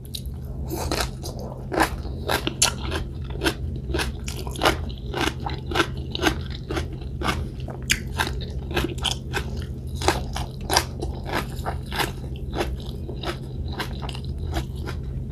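Close-up eating sounds of boiled vegetables such as cabbage leaves: chewing and crunching with quick wet mouth clicks, a few each second, over a steady low hum.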